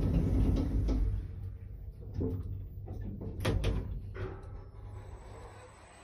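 Ace passenger lift's stainless steel sliding doors closing with a low rumble, then a few sharp clunks and clicks about two to three and a half seconds in as they shut.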